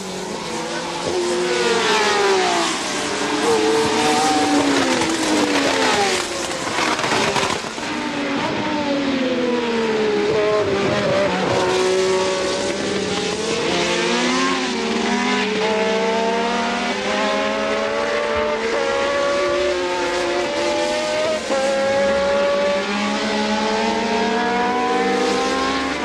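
Formula One race cars' engines at racing speed, several at once, their notes rising in steps through the gears and dropping back again and again as they pass.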